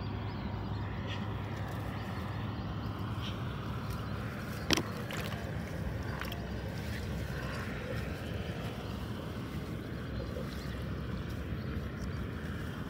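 A steady low rumbling noise with no pauses, and one sharp click about five seconds in.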